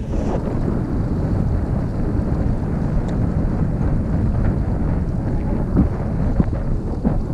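Wind buffeting the microphone, a steady low rumble, with a few short thumps near the end.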